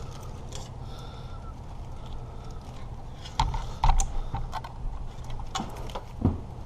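Irregular light clicks and knocks of wiring connectors and hand tools being handled while a wiring harness is hooked up to a car's starter, with a few louder knocks in the second half, over a steady low hum.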